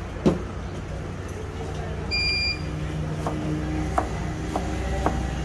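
Knife tapping on a plastic cutting board as a tomato is sliced: a few sharp taps in the second half. Before that comes a single sharp knock, and around two seconds in a short electronic beep. Faint voices and a steady low hum run underneath.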